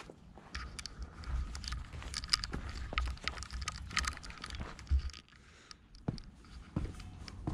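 Footsteps on a gravel and dirt path, heard as irregular short scuffs, over a low rumble.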